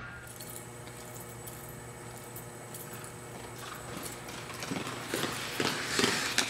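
Rhythmic footfalls on concrete, about two or three a second, growing louder over the last second and a half, over a faint steady outdoor hum.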